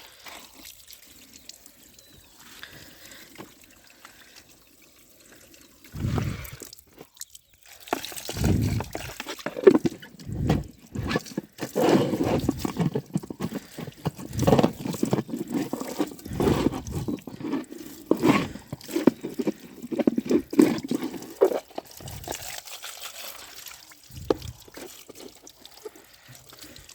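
Water pouring and splashing as muddy toy vehicles are washed by hand. It is faint for the first few seconds, then comes in loud, irregular splashes, easing off near the end.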